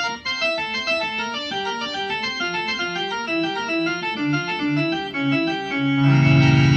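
Hammond SK-2 organ, amplified through a PA speaker, playing a quick passage of running notes. About six seconds in it swells into a loud sustained low chord with a fast pulsing wobble.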